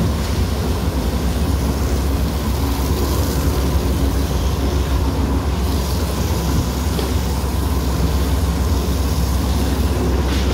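Water splashing and rushing as a hose jet floods the soapy floor and a push brush works the wet carpet, over a steady low machine hum.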